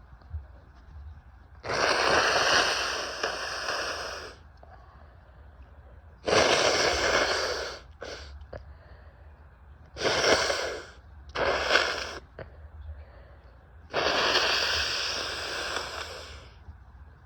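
A woman blowing her nose hard, five times. The first and last blows are long, each trailing off over two to three seconds, and the three in the middle are shorter, two of them close together.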